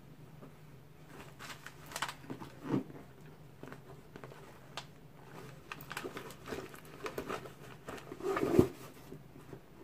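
Handling noise from a Louis Vuitton Speedy 25 Damier Ebene handbag and a nylon pouch: rustling and light taps as the bag's top zipper is drawn open. A single heavier thump comes near the end.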